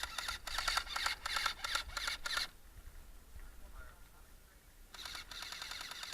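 Airsoft gun firing in rapid automatic bursts: a run of fast clicks for the first couple of seconds, then another burst about five seconds in.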